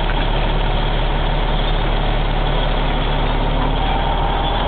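Heavy engine idling steadily, a constant low hum with no change in speed.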